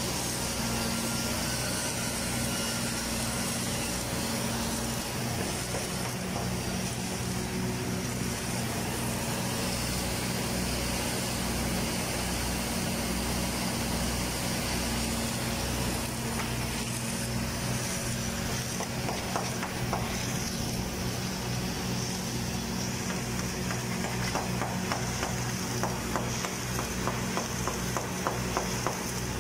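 Steady low hum of running welding machinery, with a run of quick, evenly spaced ticks and crackles starting about two-thirds of the way in.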